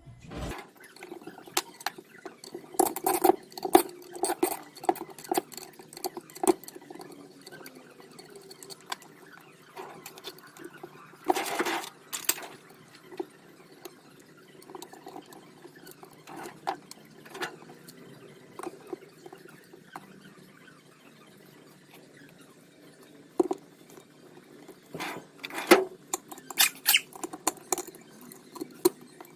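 Irregular light clicks, taps and clinks of small metal parts and hand tools being handled while dismantling car quarter light window frames, with a brief scrape about eleven seconds in.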